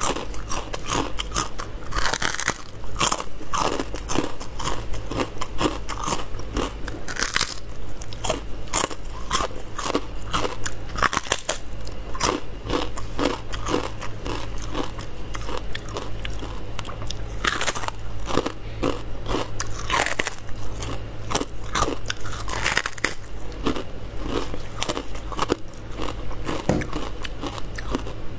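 Close-miked biting and chewing of crisp-skinned pork belly: many short, sharp crunches of the crisp skin, coming irregularly every half second or so, with wet chewing between them. A steady low hum runs underneath.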